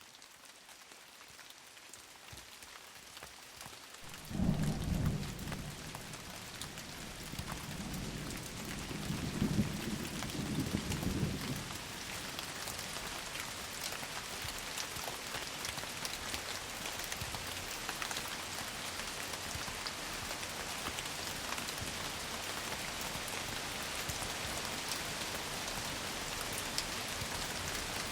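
Rain sound effect: rain fading in from faint and building to a steady, dense downpour. Two low rolls of thunder swell up about four seconds in and again around nine to eleven seconds, then die away under the rain.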